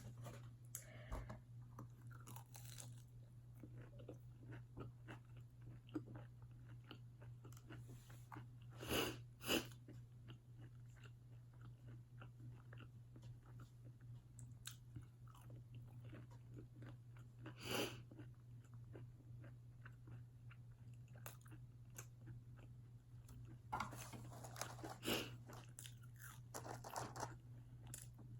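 Close-up eating of a fried chicken wing: soft chewing and mouth clicks, with several louder crunching bites. A steady low hum sits underneath.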